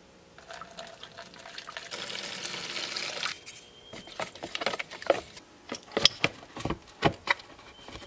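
Automatic transmission fluid poured in a stream into a plastic tub of acetone for about three seconds, then a stick stirring the mix, knocking and scraping against the tub's plastic sides. The liquids are being mixed 50/50 as homemade penetrating oil.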